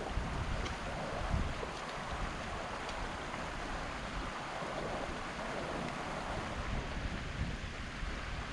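Wind buffeting the microphone in gusts over a steady rushing hiss of heavy rain.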